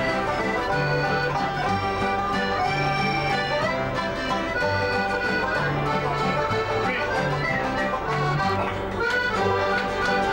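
Folk band playing an instrumental tune on accordion, acoustic guitar and banjo: the accordion carries the held melody notes over strummed and plucked strings and a steady, moving bass line.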